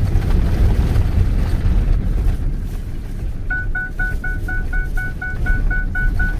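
Low rumble of the truck on the beach, and from about halfway in a rapid electronic warning chime beeping about four times a second in a steady, unchanging tone.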